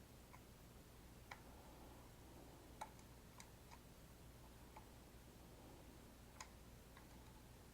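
Faint, irregular clicks and taps of small airsoft rifle parts being handled and fitted together, about seven in all, over a low steady hum.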